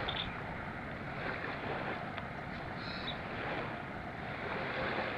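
Steady rushing noise of wind on the microphone and water moving at the surface of shallow sea water, with no engine or voice.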